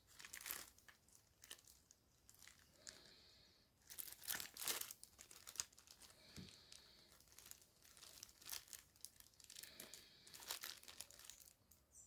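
Packaging being opened and handled: faint, irregular crinkling and tearing of wrapping with scattered small clicks and taps, loudest about four seconds in.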